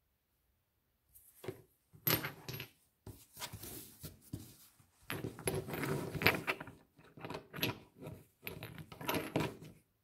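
Stones being handled and sorted on a towel: irregular rustling with clinks of stone knocking against stone, starting about a second in.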